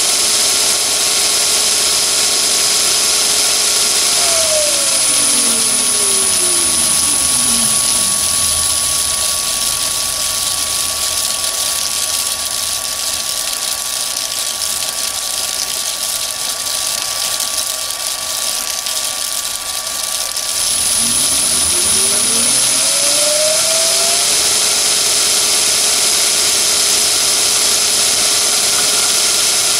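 A Chinese mini lathe spindle runs on a belt and cast-iron taper-lock pulleys, driven by a VFD-controlled three-phase motor at its top speed of about 980 RPM. A few seconds in, the pitch glides down as the speed drops. It runs slower for about twelve seconds, then glides back up to full speed.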